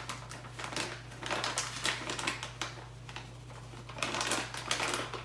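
Plastic bag of almond flour crinkling and rustling as it is handled, in quick, irregular crackles, over a steady low electrical hum.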